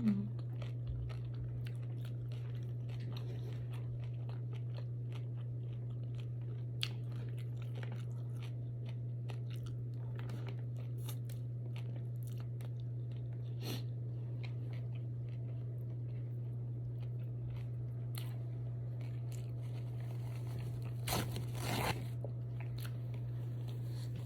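A person chewing and biting crunchy food close to the microphone: many small crunches and clicks, with a few louder crunches about 21 to 22 seconds in, under a steady low hum.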